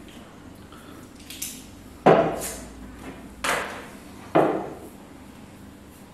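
Drinking glasses being set down on a wooden tabletop: three sharp knocks, each with a short fading ring, with a lighter tap just before them.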